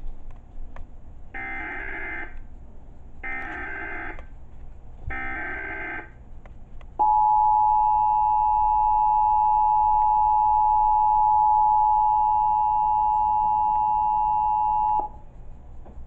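Emergency Alert System tones from a television: three identical one-second bursts of warbling digital data (the SAME header), about two seconds apart, then the steady two-tone attention signal, 853 and 960 Hz sounded together, held for about eight seconds and cut off sharply. This is the opening of an EAS Required Monthly Test, ahead of the spoken announcement.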